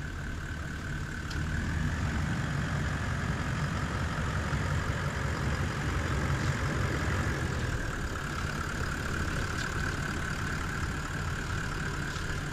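Toyota Land Cruiser 70 Series engine running steadily, a little louder from about a second and a half in.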